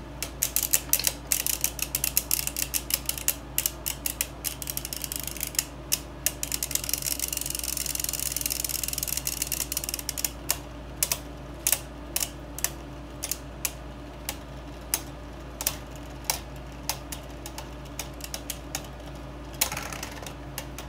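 Two Beyblade Burst spinning tops, Geist Fafnir and Turbo Spryzen, battling in a plastic stadium and striking each other again and again with sharp plastic clacks. The hits come thick at first and grow sparser later, and for a few seconds in the middle the tops rub against each other with a steady scraping hiss.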